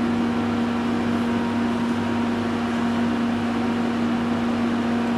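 Steady electrical hum with one constant low tone, from the power supply feeding a carbon fibre electropolishing brush.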